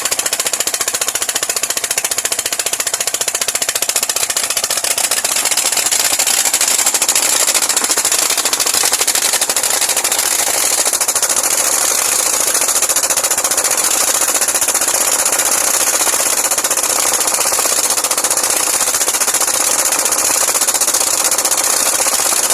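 Gold-mining machinery running loud and steady, a very fast rattling pulse with a strong hiss over it, unchanging throughout.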